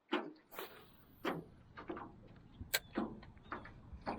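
A series of light knocks and clicks, about eight spread unevenly over four seconds.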